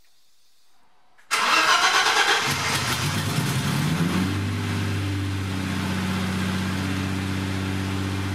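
BMW E30 325i's M20B25 2.5-litre straight-six starting for the first time after a rebuild. It fires easily about a second in, flares up, then settles into a steady idle that is running too high. Only the front half of the exhaust is fitted.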